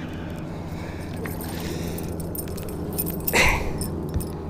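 A bass being swung out of the water on an umbrella rig: a short, loud splash about three seconds in, followed by a small click, over a steady low hum.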